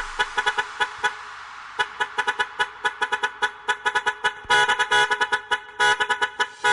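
Truck horn sounding in quick, irregular short toots, used as a sample in a budots dance remix. Longer held blasts come about four and a half seconds in and again near the end.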